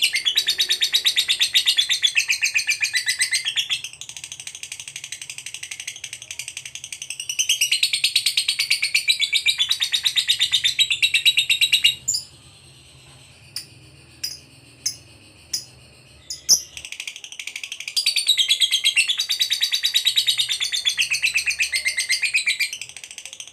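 Lovebird singing the long, rapid chattering trill known as ngekek, in long unbroken bouts. It sings loudly at first, softer for a few seconds, then loud again. About halfway through it stops for several seconds, with a few sharp clicks in the pause, and then the trill starts again.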